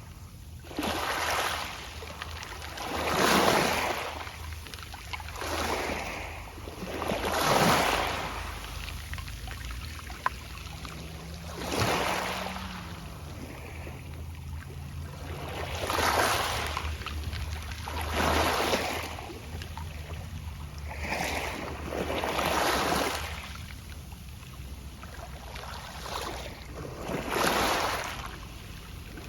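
Small sea waves washing onto a pebble beach, with soft pebble rustling. About eight surges come every two to four seconds, each swelling and falling away, over a steady low rumble.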